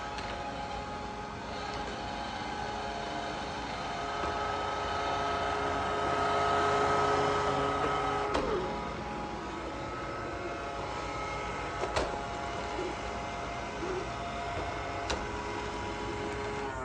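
Robot vacuum cleaner running, a steady motor hum and whine that grows louder for a few seconds midway, with a few light knocks later on.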